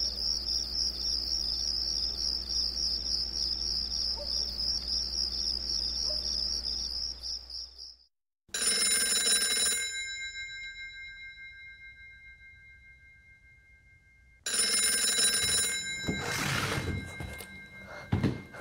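Crickets chirping in a steady high trill for about eight seconds; then, after a sudden cut to silence, a telephone bell rings twice, each ring about a second and a half long with a slowly fading tail, followed by a few knocks and clatter near the end.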